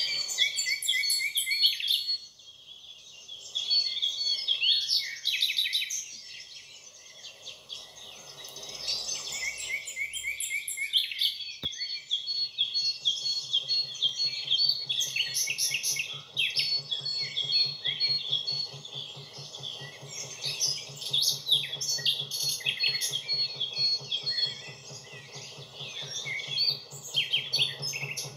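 Dense chorus of songbirds chirping and singing. Under it runs the low, steady drone of a narrowboat's diesel engine, which grows louder in the second half as the boat comes closer.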